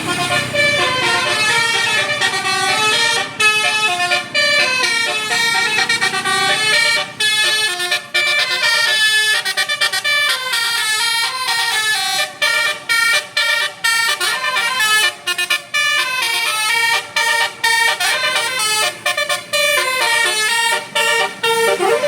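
A bus's telolet basuri horn, a multi-note musical horn, playing a tune of stepped notes, cut by many short breaks.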